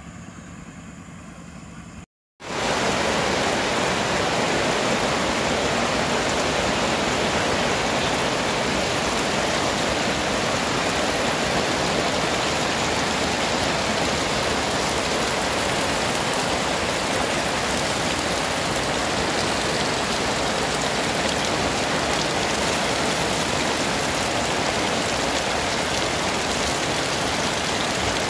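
Heavy rain falling steadily, an even dense hiss that starts abruptly about two seconds in.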